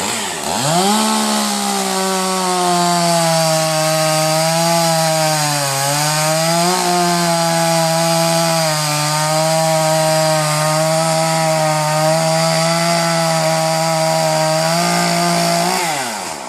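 Two-stroke chainsaw revved up to full throttle in the first second and held at a steady high pitch while cutting oak. Its pitch sags briefly about six seconds in as the chain loads up in the wood, and it drops back off the throttle near the end.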